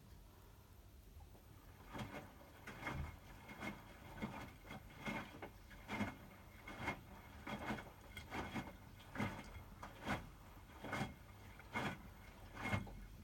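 Hotpoint WMFUG 942 washing machine drum turning during the heating stage of a 60° bed & bath wash: wet laundry lifts and drops with a soft thud and splash about once a second, over a low steady hum, and stops near the end as the drum pauses.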